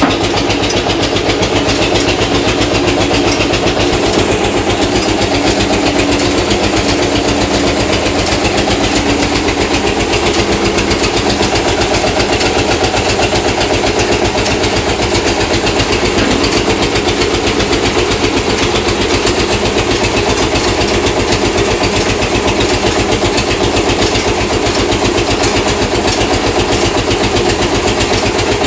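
Belt-driven screw oil expeller pressing mustard seed, powered by a single-cylinder stationary diesel engine that runs steadily with a rapid, even beat.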